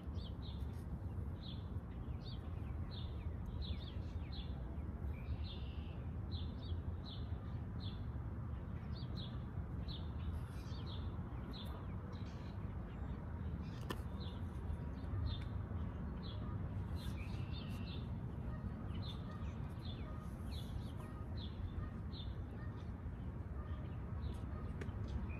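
A small songbird chirping repeatedly: short, high, falling notes about two a second, in runs with brief pauses, over a steady low rumble.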